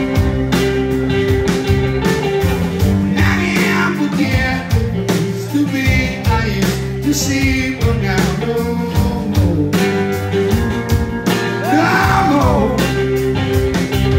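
A live blues-rock band playing electric guitars over a drum kit, with a steady beat and pitch-bending lead lines.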